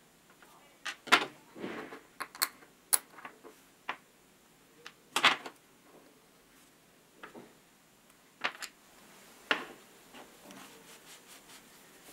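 Small steel parts of a hex driver's spring-loaded hammer head clicking and clinking as they are worked with pliers: sharp metal taps at irregular intervals, the loudest about a second in and about five seconds in. Soft rag rubbing comes in near the end.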